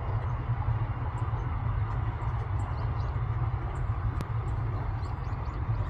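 Steady low rumble with a haze of noise above it, and faint short high chirps of Eurasian tree sparrows scattered through.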